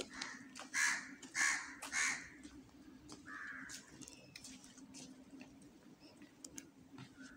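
A crow cawing, four harsh caws in quick succession in the first two seconds and one more a little over a second later. Faint footsteps and a low steady hum lie underneath.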